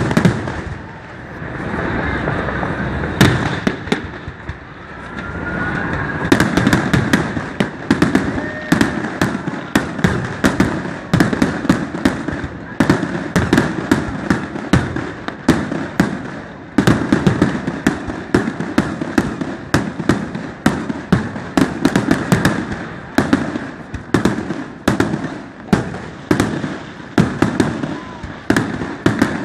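Fireworks display: booming bursts in the first few seconds with a rising whistle about three seconds in, then a rapid run of sharp cracks and bangs, several a second.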